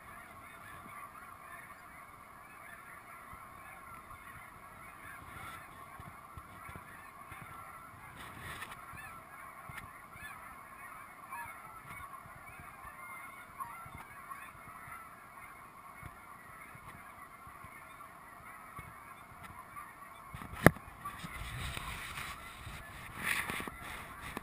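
A large flock of snow geese calling together in a steady chorus of overlapping honks. A single sharp knock sounds about twenty seconds in.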